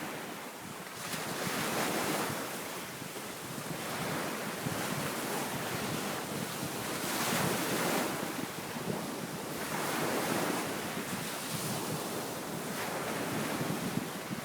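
Wind-driven waves washing onto a sandy beach, a surge coming in every two to three seconds, with wind blowing across the microphone.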